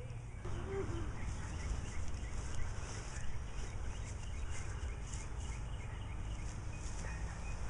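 Birds chirping in short, repeated high calls over a steady low rumble.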